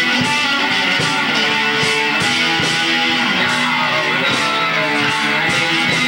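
Heavy metal band playing: distorted electric guitars strumming over a steady beat.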